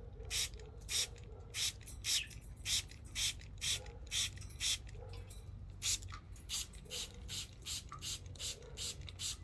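Hand-held spray bottle misting warm water onto pet budgies: a long run of short trigger-pump hisses, about two a second, coming a little faster in the second half.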